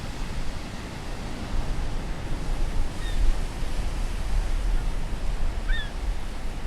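Ocean surf breaking and wind on the microphone, a steady rushing noise strongest in the low end, with a couple of faint short chirps about three and six seconds in.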